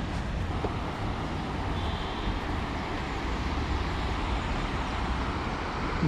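Steady rushing of a muddy river running fast over rocky shallows, with a low rumble underneath.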